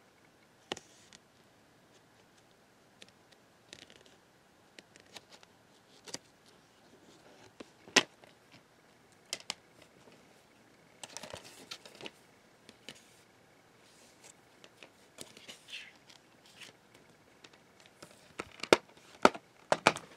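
A plastic DVD case and its cardboard slipcover being handled: scattered clicks and taps with brief rustling, and a quick run of sharper clicks near the end.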